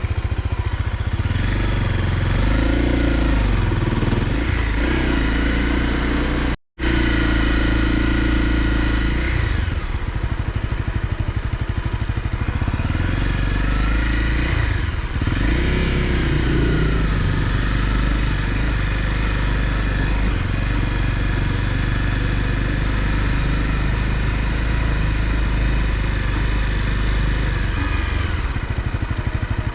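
Honda CRF250L's single-cylinder engine running while ridden, its pitch rising and falling several times as the rider works the throttle and gears. The sound cuts out for an instant about seven seconds in.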